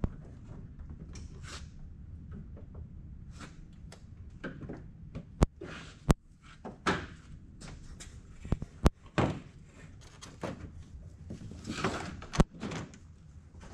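Dodge Charger's plastic front bumper cover being tugged and worked loose by hand, with several sharp clicks and knocks as its retaining clips snap and the panel shifts, amid scraping and rustling of the plastic.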